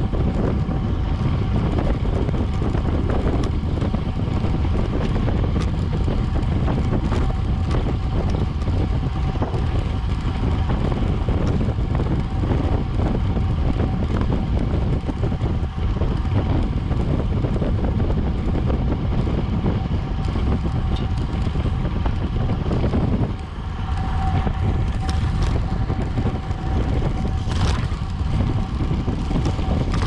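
Wind buffeting a bike-mounted action camera's microphone while racing on a road bike: a loud, steady low rush with a faint constant tone above it. The rush dips briefly about two-thirds of the way through.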